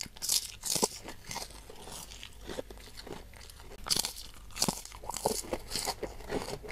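Person biting and chewing crisp kerupuk crackers. There are two sharp crunches in the first second, then a run of crunches from about four seconds in, with chewing between them.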